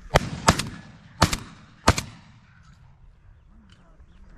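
Four shotgun shots in quick succession within about two seconds, the first two closest together, each with a short echo.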